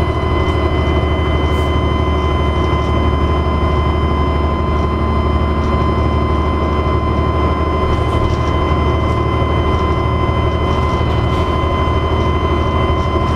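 Dennis Trident double-decker bus running steadily, a high turbocharger whine held at one pitch over a deep engine drone.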